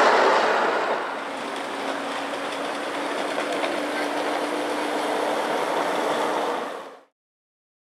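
Ride-on miniature train rolling along its track: a steady rolling noise of wheels on rail with a faint low hum. It is louder for about the first second and cuts off suddenly about seven seconds in.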